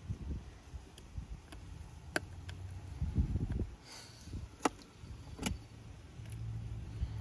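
Low rumbling handling noise with a handful of light, sharp clicks and taps as small iPhone parts and tools are handled on the work surface.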